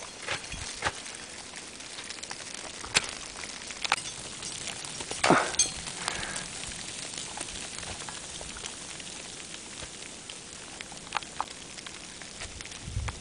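Ice axes and crampons striking snow and ice as a climber moves up a mixed gully: scattered sharp knocks over a steady hiss, the loudest about five seconds in and a quick pair near the end.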